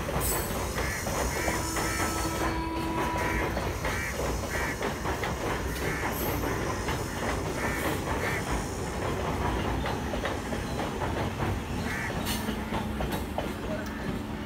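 Suburban electric multiple unit train rolling across a girder overbridge: a steady rumble with the wheels clattering over rail joints.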